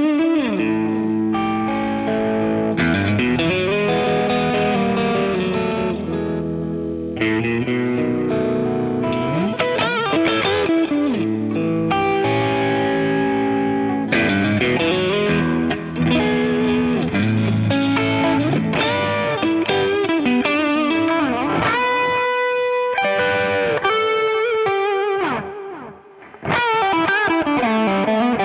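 Electric guitar played through a Klon Centaur overdrive pedal with its gain at about three-quarters, mixing chords and single-note lines with a mild overdriven tone. It starts on single-coil pickups and changes to humbuckers about three-quarters of the way through. There is a short drop in level a few seconds before the end.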